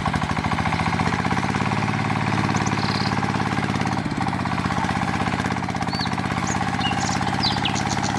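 Small engine running steadily, with rapid, even pulses and no change in speed.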